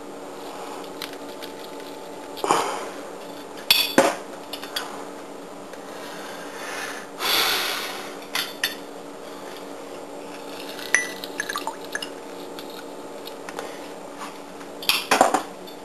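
Limes being pressed in a hand lemon squeezer over a glass: scattered clicks and knocks of the squeezer, with juice squirting and dripping into the glass, and a longer hiss about halfway through.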